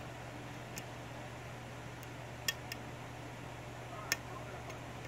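A few light, sharp metallic clicks of a dimple pick working the pins of a 6-pin Corbin dimple lock cylinder held under a tension wrench, the clearest about halfway through and again near the end.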